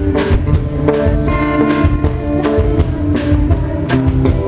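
Music with guitar and drums, sustained notes over a steady beat.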